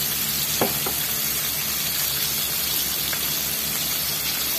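Coated chicken pieces deep-frying in hot oil in a wok: a steady sizzle, with a couple of sharp pops about half a second to a second in.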